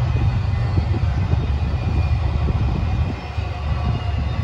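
Freight train of container-stack well cars rolling past, a steady loud rumble of wheels on rail with a faint high steady ring above it.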